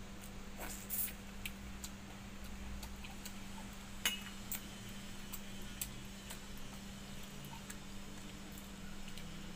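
Hand eating from a steel bowl of watered rice: scattered small clicks and clinks of fingers and bangles against the steel, with one sharp ringing clink about four seconds in. A steady low hum runs underneath.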